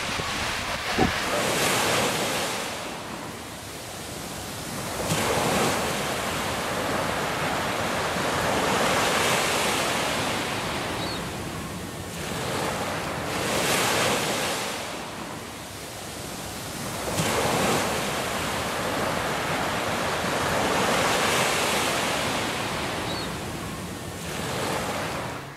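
Small waves breaking and washing up a sandy beach, the surf swelling and falling back about every four seconds.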